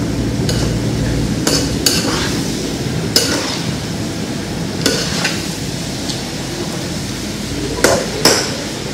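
Chicken and greens sizzling in a large metal wok while a utensil stirs them, with a steady frying hiss and scattered knocks and scrapes of the utensil against the pan.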